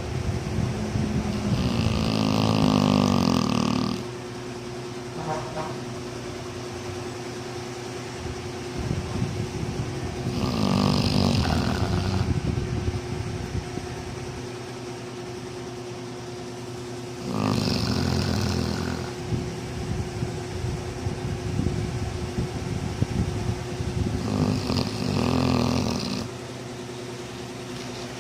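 Dog snoring in its sleep: four long snores, each about two seconds, coming roughly every seven seconds. A steady background hum runs underneath.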